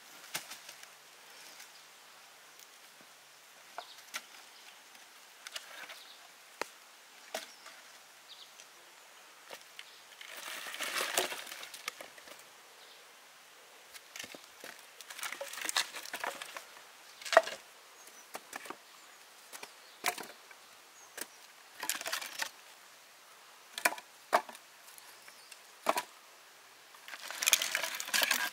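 Irregular sharp knocks and cracks of wood, a second or two apart, with a few longer rustling, splintering stretches about ten, fifteen and twenty-seven seconds in.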